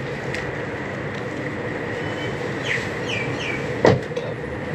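Steady street background noise, with a few short descending chirps a little past halfway and a single sharp click near the end.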